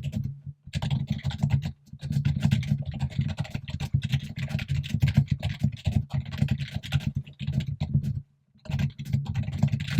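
Rapid typing on a computer keyboard, dense runs of key clicks broken by brief pauses near the start, about two seconds in and about eight seconds in.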